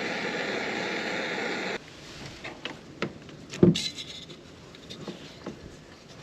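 Electric gear reduction starter motor spinning with a steady whir, cutting off suddenly about two seconds in, followed by a few light clicks and knocks.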